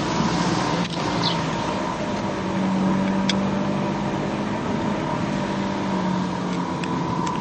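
Steady engine and road noise inside the cabin of a moving car, with a few brief clicks.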